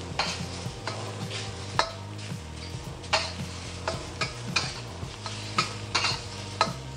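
Shrimp and minced garlic sizzling in a hot carbon steel wok, with a metal spatula scraping and clicking against the wok about a dozen times as they are stir-fried.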